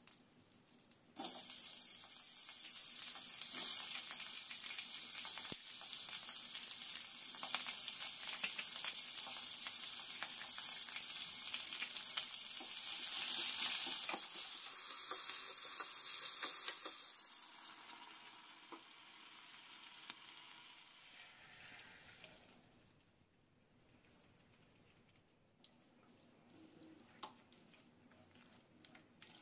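Chopped capsicum hitting hot oil in a small iron kadhai and sizzling loudly as it is sautéed on high flame, starting suddenly about a second in; the sizzle weakens and dies away well past the middle. Near the end, faint spoon clicks of stirring a thick creamy gravy.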